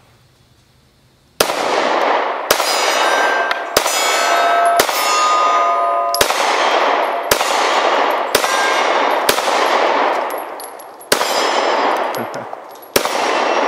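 SCCY CPX-2 9mm double-action-only pistol fired about ten times at an unhurried pace, roughly one shot a second, starting about a second and a half in. Steel targets clang and ring briefly after some of the hits.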